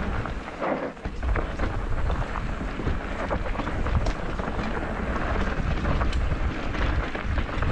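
Wind buffeting the microphone of a camera riding along on a mountain bike descending a rocky trail, with constant rattling and knocks from the bike and tyres over stones and roots.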